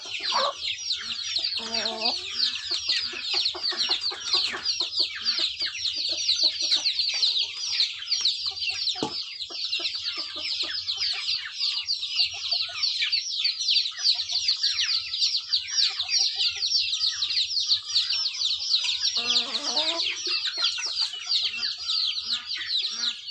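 A flock of chickens calling without a break: a dense chorus of many short, high peeps, with an occasional lower call.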